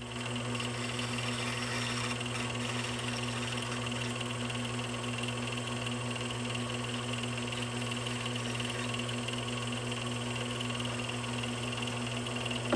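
Wood lathe motor running steadily at slow speed, spinning wooden pen blanks while super glue (CA) finish is applied. It switches on at the start with a steady hum.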